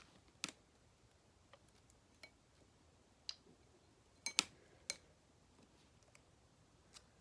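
Scattered light clicks and taps from small craft pieces being handled against hard surfaces, several with a short glassy ring, the loudest cluster about halfway through.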